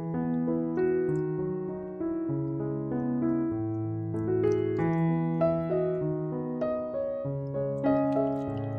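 Background piano music: chords over held bass notes, changing about once a second.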